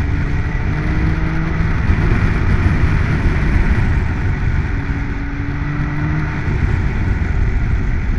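Triumph Tiger 1050's three-cylinder engine pulling the bike along at road speed, with heavy wind rush over the helmet. The engine note comes up plainly twice, briefly.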